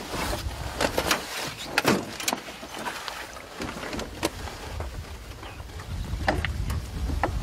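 Scattered sharp clicks and light knocks from fishing tackle and reel against the side of an aluminium boat, about half a dozen spread irregularly over a steady outdoor hiss.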